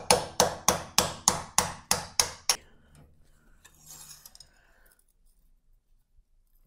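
Steel hand hammer striking metal about three times a second, nine sharp blows, knocking loose the wedges that hold a power hammer's bottom die in its dovetail. The blows stop about two and a half seconds in, and a faint scrape follows as a steel wedge is drawn out.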